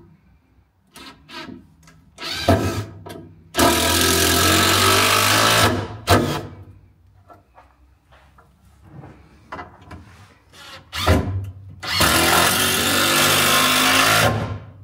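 Cordless drill driving wood screws down through 2x4 braces into the frame below: two long runs of about two seconds each that stop abruptly as the screws seat, with short trigger bursts between them.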